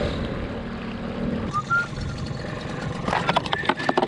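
Mercury 3.3 hp two-stroke outboard running steadily, then dropping away after about a second and a half. A short squeak follows, and then, about three seconds in, a burst of knocks and plastic clatter as the lidded fish bin is opened on the boat.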